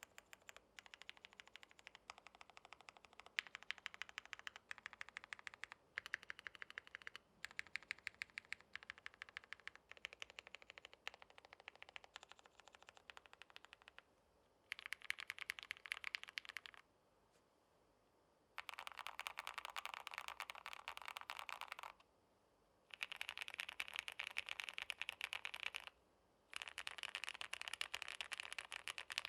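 Mechanical keyboard being typed on: a gasket-mounted 65% board with lubed Gateron Silver Blizzard V2 linear switches, aluminum half plate and doubleshot ABS keycaps. Runs of rapid keystrokes, the fastest in the second half, broken by short pauses.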